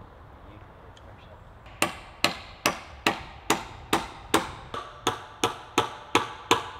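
Hammer driving nails to fix cedar rafters to the ridge pole: a steady run of sharp, ringing strikes, about two and a half a second, starting about two seconds in.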